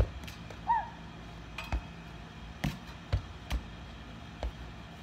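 Sharp slaps of hands striking a tetherball, about eight unevenly spaced hits, with a brief high-pitched yelp about a second in.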